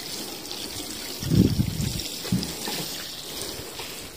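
Water spraying from a plastic watering can's rose head onto loose soil, a steady hissing trickle. A couple of low thuds come about a second and a half and two and a half seconds in.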